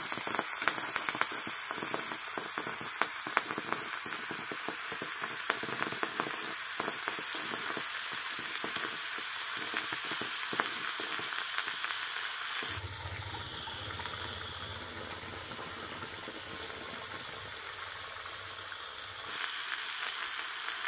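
Charcoal burning fiercely with potassium nitrate in a steel bowl: a steady sizzling hiss with rapid crackles and pops, the crackling thinning out about halfway through. A low hum comes in for several seconds in the second half.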